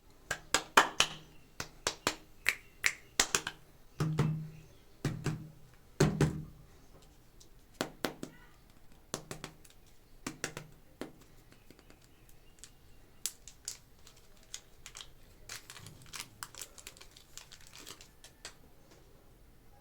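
Sharp clicks and taps of plastic clay packaging being handled and opened, dense for the first several seconds and then sparser and fainter, with a couple of duller hollow knocks about four and six seconds in.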